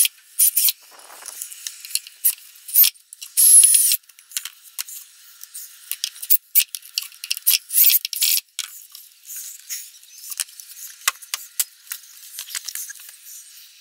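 Irregular scraping and rubbing, broken by many small sharp clicks. About three seconds in there is a brief louder hiss with a high squeak.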